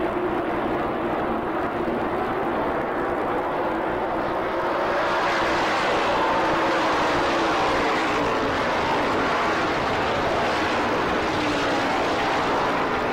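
A pack of NASCAR Modified race cars running at racing speed, their V8 engines making a continuous dense drone. It grows louder and brighter about five seconds in as the cars come close past the grandstand.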